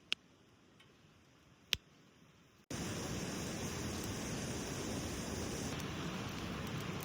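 Two sharp clicks in near quiet, then an abrupt jump to a steady, loud rush of water about three seconds in, such as a river flowing close by.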